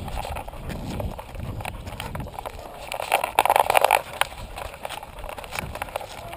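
Irregular knocks, rattles and scuffs from a camera strapped to a dog's harness as the dog moves about on a dirt trail, with a louder rubbing rush about three seconds in.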